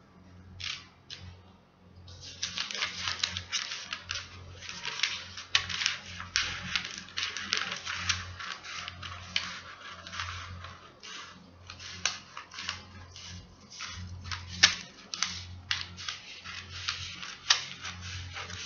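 Scissors cutting through pattern paper: an irregular run of crisp snips and paper crackle that starts about two seconds in.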